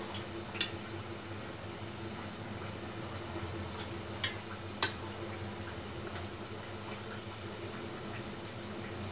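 Metal kitchen tongs clinking sharply against a steel bowl and a plate: once about half a second in, then twice close together around four seconds, while balushahi are lifted out of sugar syrup. A steady low hum sits underneath.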